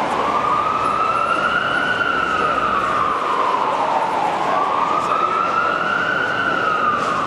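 Emergency vehicle siren wailing, its pitch slowly rising and falling in two long sweeps, over a steady background of crowd noise.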